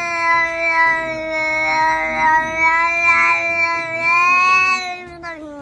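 A cat's long, drawn-out meow held on one steady pitch, wavering slightly, then dropping in pitch as it stops near the end.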